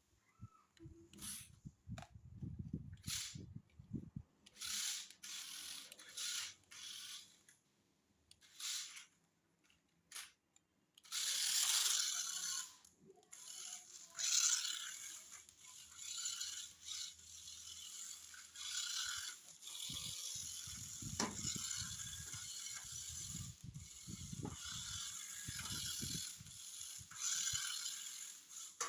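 Toy remote-control off-road car's small electric motor and plastic gears whirring, in short bursts at first and then running more steadily from about eleven seconds in.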